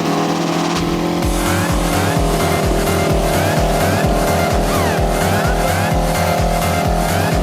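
Electronic dance music with a heavy, steady bass beat, about two kicks a second, under held synth tones.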